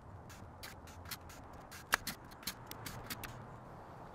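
A string of light, irregular clicks and taps from fitting trim, with one sharper crack about two seconds in.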